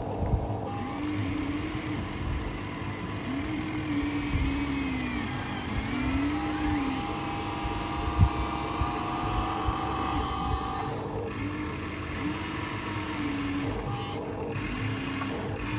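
Small electric motors of a radio-controlled model excavator whining, pitch repeatedly rising and falling as it works, over a steady hum, with a single sharp clunk about eight seconds in.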